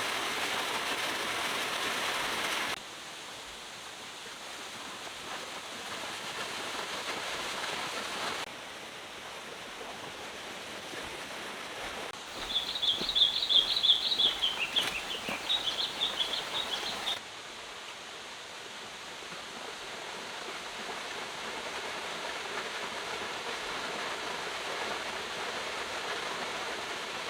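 Steady rush of flowing water from a stream and waterfall, spliced from several takes, so its level jumps abruptly a few times. About halfway through, a small bird sings a fast run of high chirps for about five seconds, the loudest sound here.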